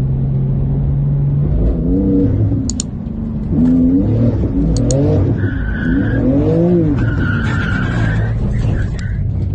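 Sports car engine heard from inside the cabin, holding a steady drone, then revving up and down again and again from about two seconds in as the car is driven hard. Tyres squeal twice past the middle, each squeal held at a steady high pitch for about a second.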